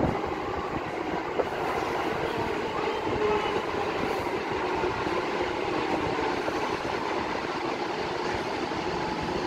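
Tokyo Metro 05 series (sixth batch) subway train pulling into an underground station platform, its wheels and running gear rumbling steadily on the rails, with a held tone over the noise.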